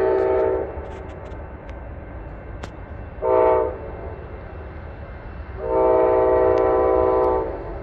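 Amtrak locomotive's multi-chime air horn: the end of one blast, a short blast about three seconds in, then a long blast of nearly two seconds. This closes the long-long-short-long pattern that a train sounds for a grade crossing.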